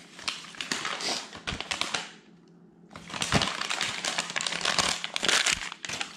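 Packing material being crinkled and crumpled while a package is handled and opened: a dense, irregular crackling that stops briefly about two seconds in, then starts again.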